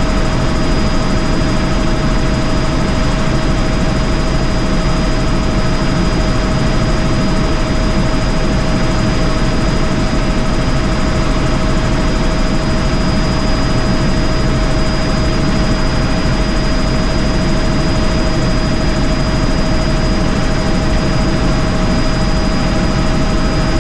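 Helicopter in flight heard from inside its cabin: a loud, steady rush of rotor and engine noise with a constant high whine running through it.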